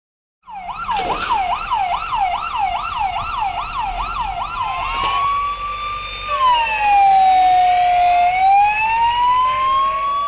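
Emergency-vehicle siren on Prefectura vehicles, running a fast yelp at about two and a half sweeps a second. About five seconds in it changes to a slow wail that dips and then climbs back up.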